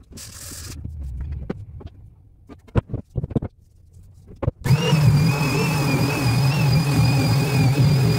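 A few sharp wooden knocks as the frame is handled on the bench. Then, about halfway through, an electric random orbital sander switches on and runs steadily against the black walnut leg frame, a low hum with a thin high whine over it.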